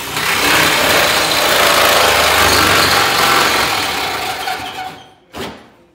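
Handheld power tool running against the sheet-steel body of a Ford Model A during a top chop: a loud, steady buzz that fades out about five seconds in, then one short burst near the end.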